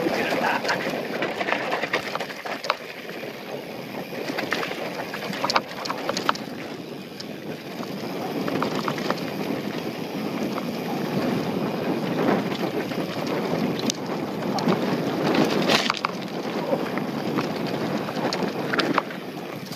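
Mountain bike rolling fast down a dry, rocky dirt trail: tyres crunching over dirt and loose stones and the bike rattling, with scattered sharp knocks and steady wind noise on the microphone.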